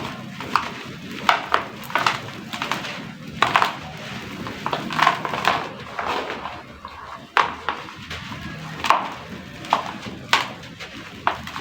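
Crispy dried sand-cement chunks crumbling into a tub of water: irregular sharp cracks, about one or two a second.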